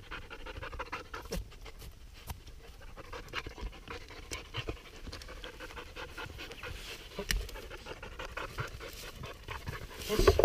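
Belgian Malinois panting close to the microphone, with scattered short clicks and snaps. Near the end a rising swell of sound begins.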